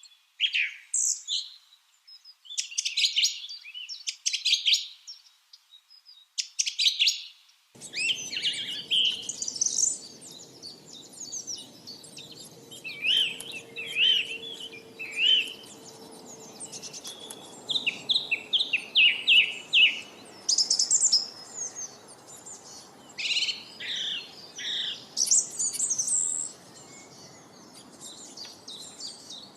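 Lovebirds chirping and chattering in quick runs of sharp, high calls. About eight seconds in, a faint steady background hiss comes in under them.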